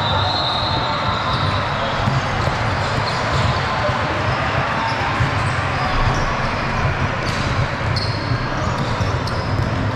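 Basketball game play in a gym: a ball bouncing on the court with short high sneaker squeaks at the start and about eight seconds in, over a steady background of crowd noise.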